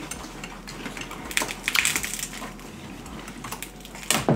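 Snow crab leg shells cracking and snapping apart in the hands, close to the microphone: a handful of sharp cracks, the loudest near the end.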